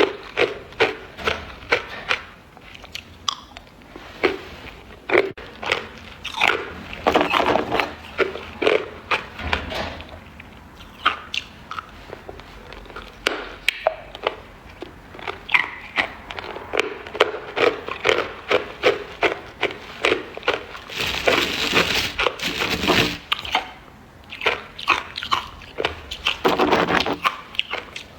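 Ice being bitten and chewed close to the microphone: sharp crunches in quick clusters, with a denser, louder run of crunching about three quarters of the way through.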